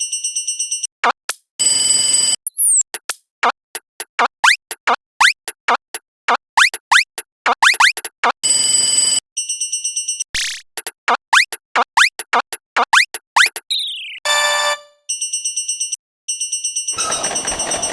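Cartoon sound effects: short spells of a rapidly pulsing electronic alarm tone, a railroad-crossing bell, alternating with long runs of quick rising whistle-like chirps. There are a couple of falling glides and a single sudden hit about ten seconds in.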